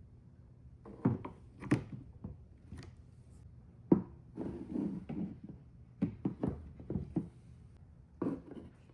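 Marbles rolling and clattering down a marble run track: irregular clicks and knocks, the loudest one about four seconds in, with a short stretch of rolling rumble just after it.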